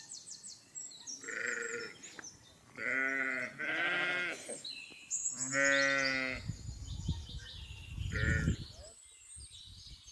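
Sheep and goats bleating: about five separate wavering calls, the loudest about six seconds in.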